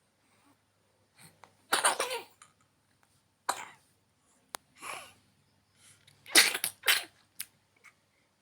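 A young child coughing, a series of short harsh coughs about a second or more apart, the loudest two close together near the end.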